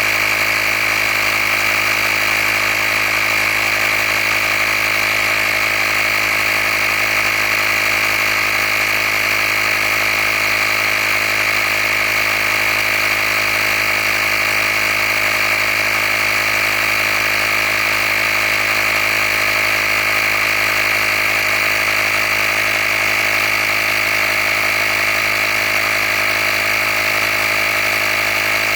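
Handheld battery air compressor running steadily while inflating a tire, a constant motor drone with a high whine.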